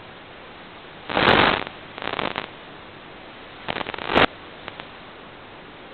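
Steady hiss of an analog FPV video link's audio channel, broken by bursts of static crackle about a second in, around two seconds and near four seconds: radio interference as the signal from the model plane breaks up.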